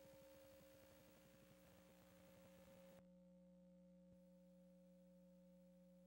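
Near silence: a faint, steady hum of a few low tones under light hiss. The hiss drops away about three seconds in.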